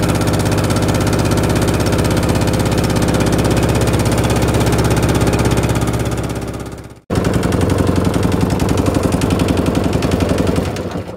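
A small outrigger boat's inboard engine running steadily under way, with a rapid, even beat. It breaks off abruptly for a moment about seven seconds in, then drops off near the end as the boat comes in toward the beach.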